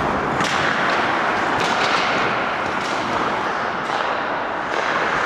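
Ice hockey play on a rink: a steady wash of arena noise, broken by short sharp scrapes and knocks of skates and sticks on the ice about once a second.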